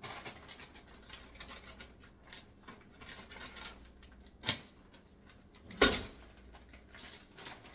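Plastic bag of shredded cheese crinkling and rustling as it is handled, with two sharp clicks about four and a half and six seconds in.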